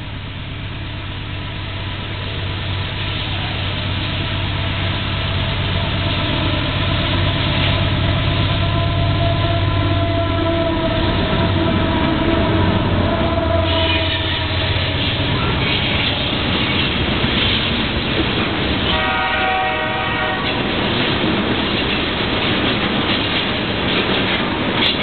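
Canadian Pacific diesel locomotives drifting past at close range, their engine drone building to its loudest about halfway through. A string of loaded tank cars follows with a steady rolling rumble of wheels on rail, and a brief high ringing tone cuts in about three-quarters of the way through.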